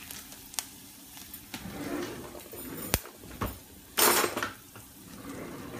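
A stainless steel saucepan of oil and dried herbs knocking and clinking against a gas stove grate as it is moved, with a few sharp clicks and a loud half-second hiss about four seconds in.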